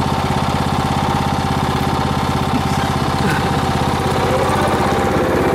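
Riding lawn mower's small engine idling steadily, with an even chugging pulse.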